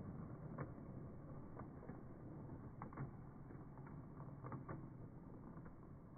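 Hornby model railway coaches rolling along the track in slow motion: a low, steady rumble with irregular sharp clicks as the wheels run over the rail joints.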